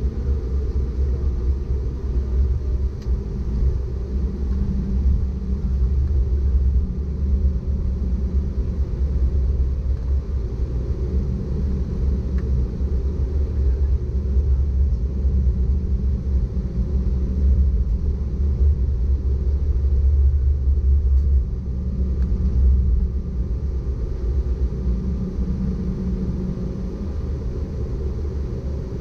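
Cabin noise of an Embraer E190 taxiing: a steady low rumble from its GE CF34 jet engines at low taxi power and the airframe rolling along the pavement, with faint steady engine tones above it.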